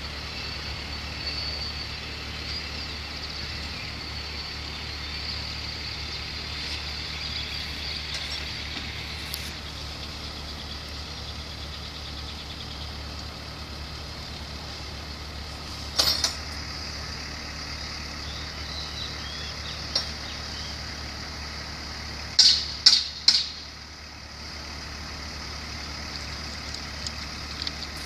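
Engine of a rail-mounted work vehicle idling steadily, with a sharp knock about halfway through and three more in quick succession near the end, from the workers fitting hardware to the overhead-line mast.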